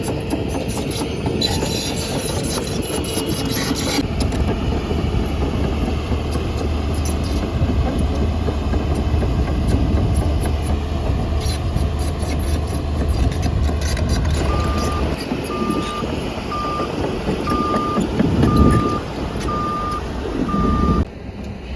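Heavy diesel earthmoving machinery running steadily. In the last third a reversing alarm beeps seven times, about once a second, and the sound cuts off sharply just before the end.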